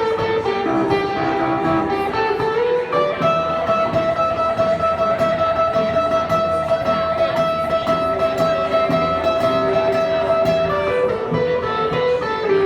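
Electric guitar playing a slow melody: a few notes, then one long sustained note held for about eight seconds, then moving notes again near the end.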